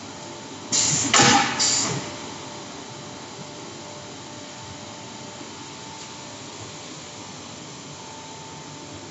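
Steady hum of a manual glass cutting table's air blower or vacuum pump, which holds the glass sheet on the table. About a second in come three short, loud bursts of hiss, one after another.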